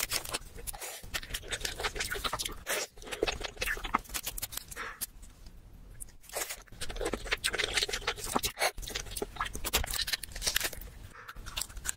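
King crab shell being cracked, snapped and cut open: rapid crackling and crunching clicks, easing off briefly about halfway through.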